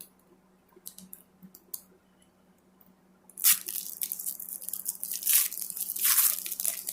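Foil wrapper of a trading card pack being torn open and crinkled: a few faint crinkles, then loud crackling crinkling from about three and a half seconds in.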